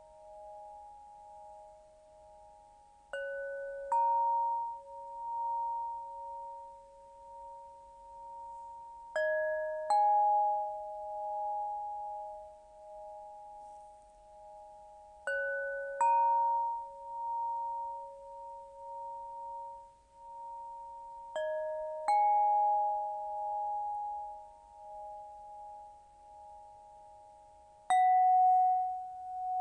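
Crystal pentonia played slowly: a new pair of notes is struck about every six seconds. Each pure tone rings on long and overlaps the notes still sounding, so the notes blend into soft, changing chords.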